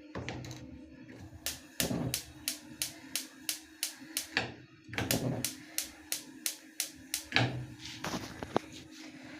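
Kitchen handling sounds: knocks and thunks, as of cupboard doors and objects being moved, with a quick, even run of sharp clicks about four a second through the middle, over a steady low hum.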